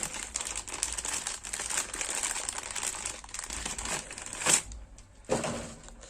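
Plastic packaging crinkling and rustling as the PC programming cable is taken out of its bag, with two louder handling sounds near the end.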